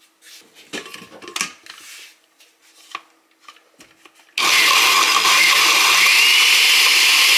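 A few light knocks and clatter of handling, then an electric blender switched on about four seconds in, running loud and steady for about three seconds as it blends peeled ginger for a ginger shot.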